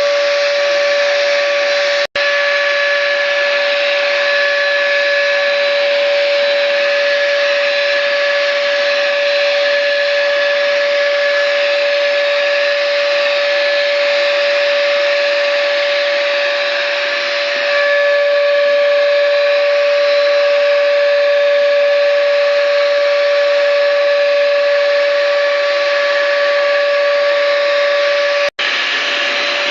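Schultz electric spray gun running steadily with a constant high whine, spraying primer. The sound drops out for an instant about two seconds in and again near the end.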